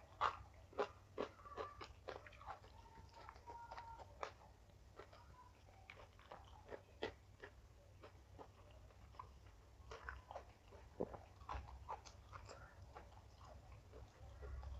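A person biting, crunching and chewing crunchy raw food close to the microphone: irregular crisp bites and wet mouth sounds, thicker in the first couple of seconds and again later on.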